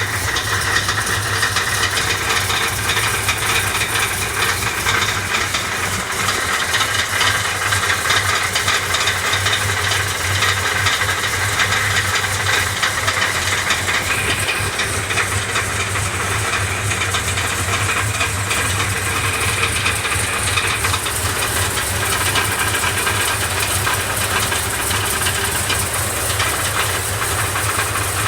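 Car engine running steadily with a fast, continuous metallic clatter over a hiss; the owner cannot tell where on the engine the clatter comes from.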